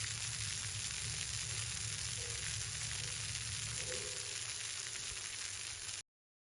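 Steady crackling hiss with a low hum under it, cutting off suddenly about six seconds in.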